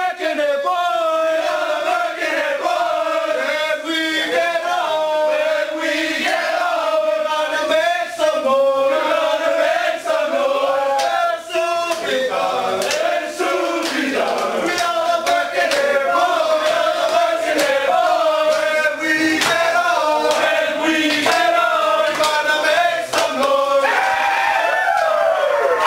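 A group of male voices singing and chanting together, with sharp percussive hits in the second half.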